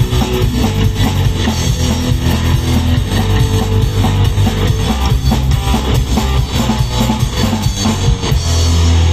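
Instrumental rock band music with guitar and drum kit, ending on a long held chord about eight seconds in.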